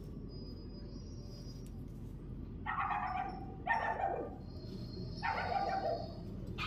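Three short animal calls, about a second apart, over a steady low background hum.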